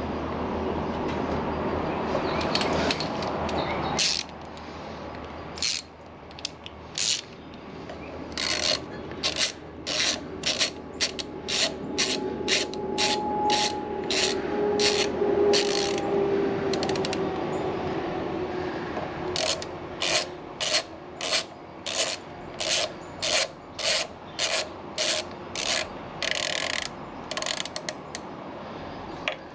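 A socket ratchet wrench worked in a long series of short, even strokes, about two a second, with a pause partway through, while engine parts are tightened. It follows a steady mechanical noise that cuts off about four seconds in.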